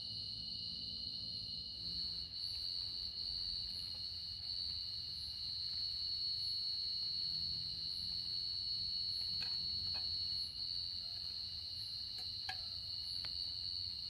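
Forest insects trilling in a steady, continuous high chorus, with a fainter chirp repeating higher up about every 0.7 seconds and a few faint clicks near the end.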